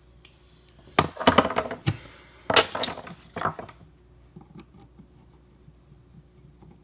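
Metal clicking and clattering of a screwdriver and outlet hardware as a GFCI outlet is unscrewed from its wall box, in two short bursts about a second and two and a half seconds in.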